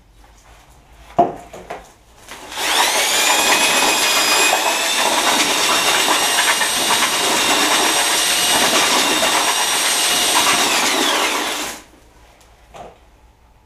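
Electric drill with a paddle mixer stirring a wet mix in a bucket. The motor spins up about two and a half seconds in, runs steadily for about nine seconds, then winds down. A single knock comes just over a second in.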